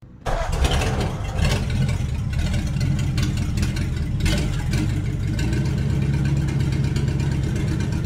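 Car engine starting abruptly and then running steadily, with a couple of brief revs about a second and a half in and again past four seconds. The engine sound is laid over footage of a 1/64 diecast model, which cannot make it.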